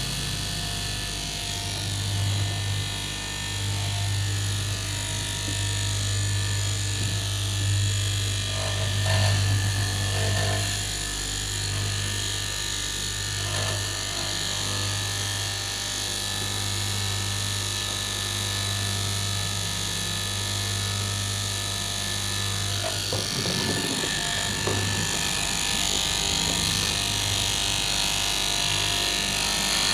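Electric straight-knife cloth-cutting machine running steadily as it cuts through layers of fabric, a constant motor hum with a high hiss over it, turning rougher for a few seconds after about twenty-three seconds.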